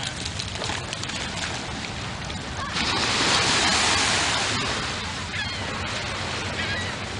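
Small surf washing on the beach: a steady hiss, with one wave rushing in louder about three seconds in and easing off. A few faint high chirps near the end.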